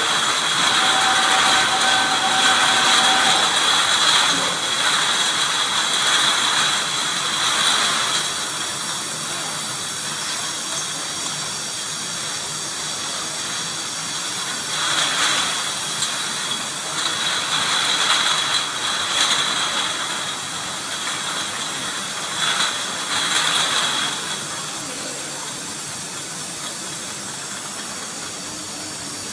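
Glass-bottle production line running: conveyor machinery gives a steady hiss with a constant high whine, and louder surges of noise come and go several times. It gets quieter near the end.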